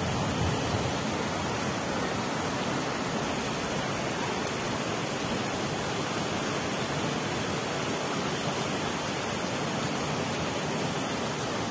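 Fast-flowing floodwater of a swollen creek rushing in a steady, unbroken noise.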